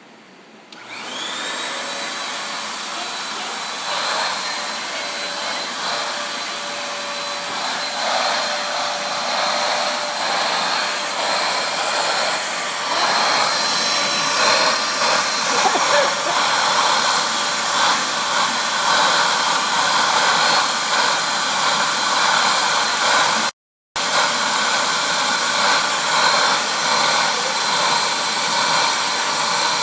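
Vacuum cleaner switching on about a second in, its motor whine rising to speed, then running steadily as it is passed over a dog's coat to suck out shed hair. The sound breaks off for a moment near the end.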